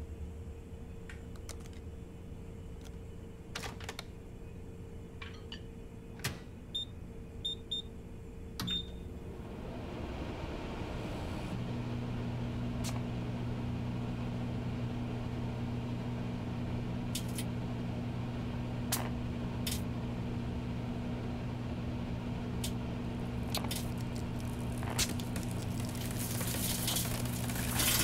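Microwave oven being set and started: a few clicks and short keypad beeps, then the oven starts about ten seconds in and runs with a steady low hum, with occasional sharp clicks over it.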